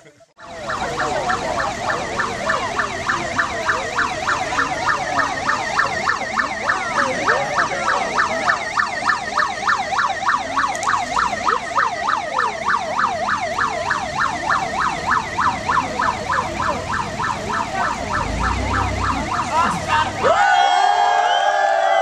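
Electronic siren warbling fast, sweeping up and down several times a second without a break, then cutting off suddenly near the end. A low rumble swells in the last few seconds before it stops.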